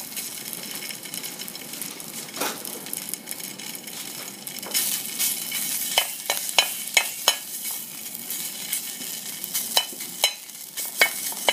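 Thai kua kling curry paste sizzling in a little oil in a metal frying pan while a metal spatula stirs it and scrapes the pan; the paste is being fried until fragrant. Several sharp spatula scrapes and taps on the pan come in a quick run about halfway through and again near the end.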